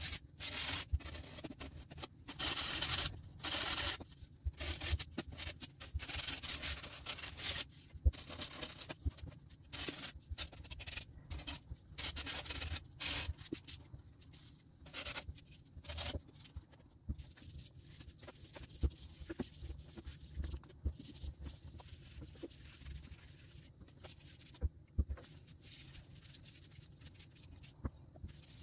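Hand-sanding wood with sandpaper: irregular rasping strokes for the first half, then quieter handling with scattered light knocks of the wooden board against the bench.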